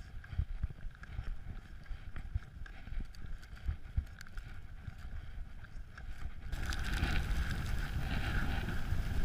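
Wind buffeting an action camera's microphone in irregular low gusts and thumps. The noise grows louder and fuller about six and a half seconds in.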